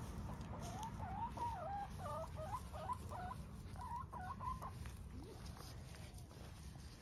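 Domestic hen clucking softly: a run of short, wavering calls that rise and fall, which stops after about four and a half seconds.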